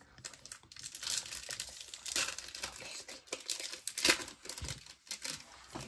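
Trading card pack wrapper crinkling and tearing in irregular rustles as it is handled and opened.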